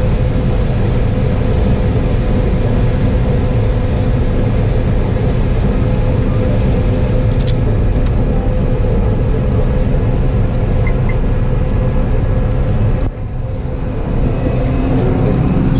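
Steady running noise of a John Deere 9570 combine harvesting corn: the engine and threshing machinery hum. About thirteen seconds in, the sound drops suddenly, then builds back up over a couple of seconds.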